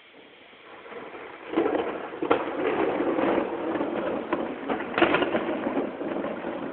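Thunder: a rolling peal that rises out of quiet about a second and a half in and rumbles on, broken by several sharp cracks.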